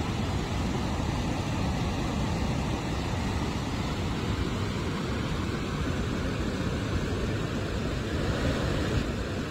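Floodwater discharging through the Three Gorges Dam's spillway gates: a steady, even rushing noise, heaviest in the low range.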